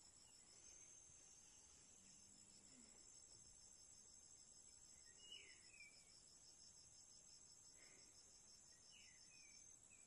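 Faint, steady, high-pitched insect chorus, a fast even trilling typical of crickets, with a couple of short chirps about halfway through and again near the end.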